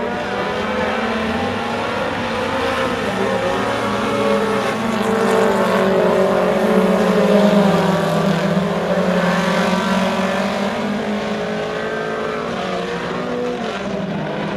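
Four-cylinder Super Stock dirt-track race cars running around the oval, their engines rising and falling in pitch. It gets louder as cars pass close by about halfway through, then fades as they move away.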